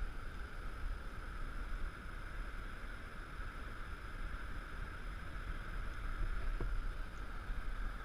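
Wind rumbling on the microphone, a steady, uneven rumble with an even hiss over it.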